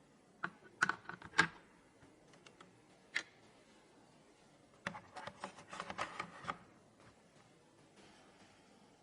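Sharp clicks and taps of computer parts being handled and fitted during a PC build: three clicks in the first second and a half, one more about three seconds in, then a quick run of clicks from about five to six and a half seconds in.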